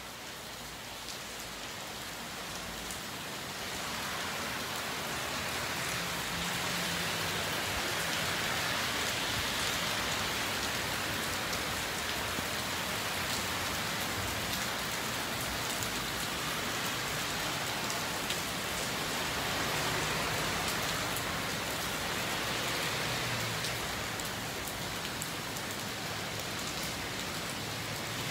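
Steady rain falling on a wet street and sidewalk, a dense even hiss with scattered drop ticks. The hiss swells now and then as cars drive through on the wet road.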